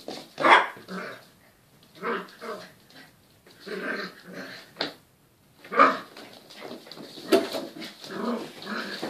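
Cockapoo puppies play-fighting, growling and yapping in short, irregular bursts.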